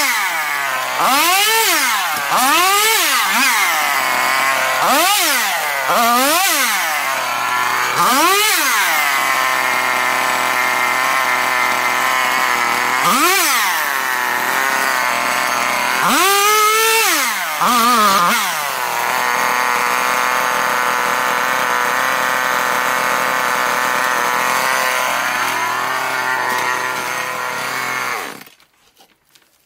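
Two-stroke chainsaw revved in a series of short bursts, each rising and falling in pitch, then running steadily for about ten seconds before it cuts off near the end.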